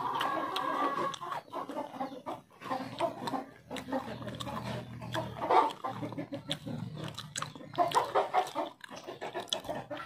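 Close-up chewing of a sesame-topped kue ketawa cookie, with many small irregular crunches and mouth noises.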